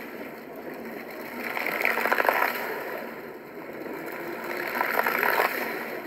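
Water jets of a dancing fountain rushing and splashing into the pool, swelling and fading in waves, loudest about two seconds in and again about five seconds in.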